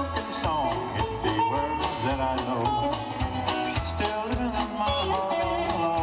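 Live country band playing an instrumental passage: lead guitar with sliding, bending notes over electric bass and a steady drum beat.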